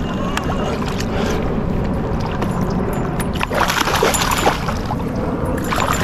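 Water splashing and sloshing as a hooked bass is brought up beside a kayak and lifted from the water, over a steady low rush. The splashing gets louder for a moment about halfway through.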